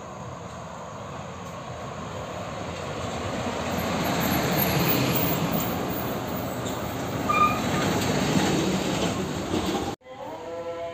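A bus approaching and passing close by, its engine and tyre noise growing to a peak and staying loud, with a short high squeak about seven seconds in. Just before the end it cuts off abruptly to music.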